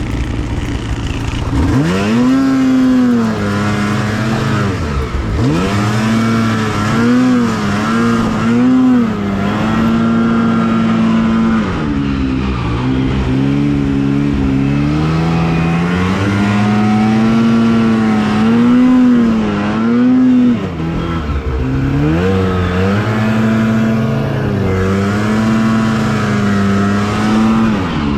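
Two-stroke snowmobile engine running hard, its pitch repeatedly rising and falling as the throttle is worked, with deep dips around five seconds and twenty seconds in.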